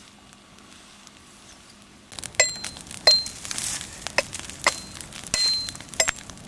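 Repeated sharp metallic clinks, each with a brief high ring at the same pitch, about one a second. They start about two seconds in, after a quiet opening.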